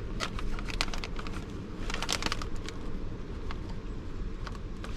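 Plastic MRE heater bag crinkling and crackling in scattered sharp clicks as it is handled and filled with water, over a steady low wind rumble.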